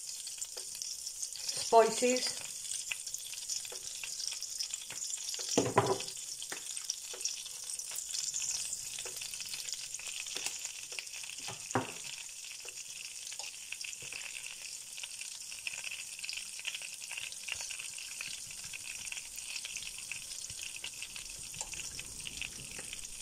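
Chilli flakes and ground spices sizzling in hot chilli-infused olive oil in a pan, a steady crackling hiss. There is a knock about six seconds in and a sharp click about twelve seconds in.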